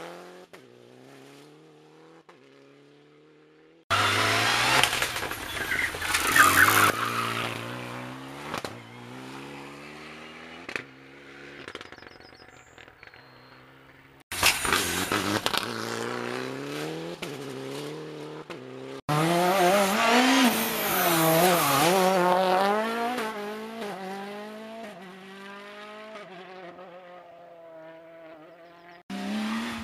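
Rally cars driving hard on a tarmac stage, one after another, with engines revving high and the pitch climbing and dropping in steps as they shift gears and brake for corners. The sound cuts abruptly between passes, about four times.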